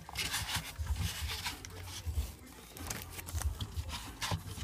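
Handling noise from a phone being moved about at close range: uneven low bumps with scattered clicks and scraping rustles.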